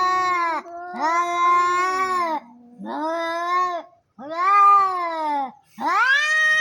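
Angry cats yowling: a run of about five long drawn-out yowls, each rising then falling in pitch, with a lower held tone running under some of them. These are the threatening calls of cats squaring up to fight.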